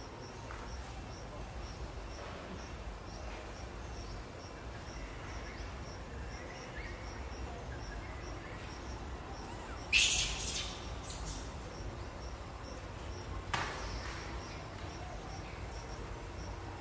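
Outdoor ambience with an insect chirping evenly at about four chirps a second. A brief, sharp, loud high sound breaks in about ten seconds in, and a shorter one a few seconds later.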